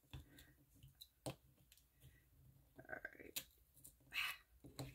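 Faint, scattered clicks and light taps from a small hand tool pressing a sticker down onto resin.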